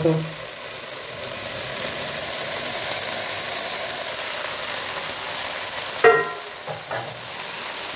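Meatballs, fried onions and tomato paste sizzling steadily in a frying pan as a batch of fried potato cubes is tipped in on top.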